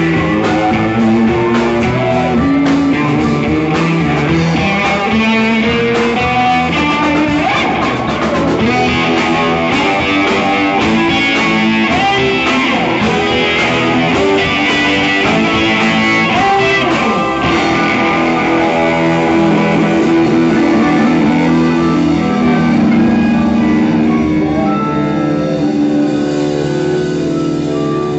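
Live blues band playing an instrumental break: electric guitar to the fore over bass and a drum kit.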